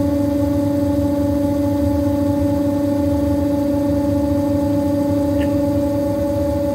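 CNC milling machine spindle running at a steady speed, turning a white plastic workpiece against a fixed cutting tool, with the mill used as a lathe. A steady whine holds one pitch over a low rumble.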